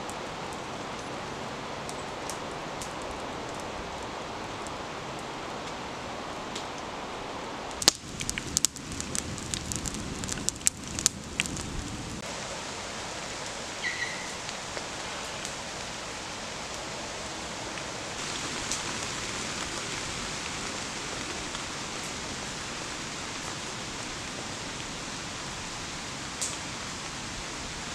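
Steady rain shower hissing on woodland foliage. For a few seconds near the middle, a quick run of sharp cracks and snaps stands out over it.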